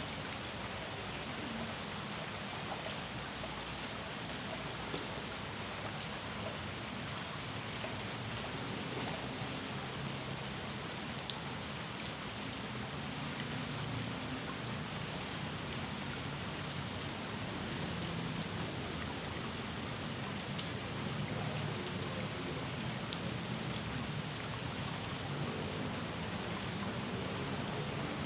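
Steady rain falling on a pond's surface, with scattered sharper drops and one louder tap about eleven seconds in.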